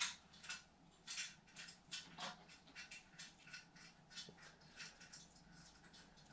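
Scissors snipping rubber fender welting to notch it so it curves without bunching: a run of faint, sharp snips and clicks, about three a second.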